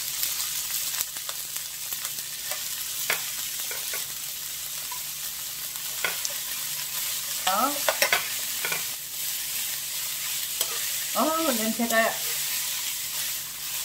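Blanched butterbur stems sizzling in hot oil in a nonstick frying pan, stirred with a metal spoon that clicks and scrapes against the pan.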